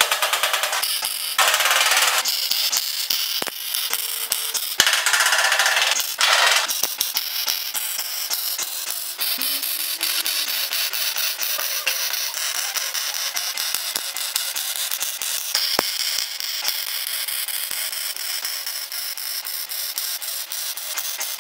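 MIG welder crackling as it lays tack welds on a car's thin sheet-metal floor pan. Several short bursts come in the first few seconds, then a longer, steadier run of crackle.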